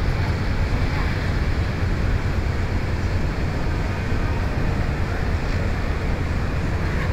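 Steady night-street noise with a low rumble of traffic, and wind buffeting the microphone.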